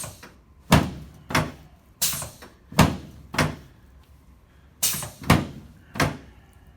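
A run of about ten sharp thumps from chiropractic adjustment thrusts on the patient's back and hips, roughly one every half second to second, with a short pause midway.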